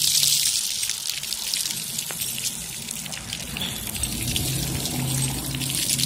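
Ground-level splash-pad fountain jets spraying water onto wet concrete: a steady hiss of spray with many small splashes. A low steady hum comes in about four seconds in.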